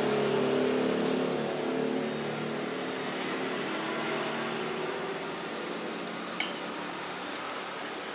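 Road traffic noise: a passing vehicle's engine fades away over the first couple of seconds, leaving a steady traffic hum. One sharp clink of metal cutlery on a plate comes about six seconds in.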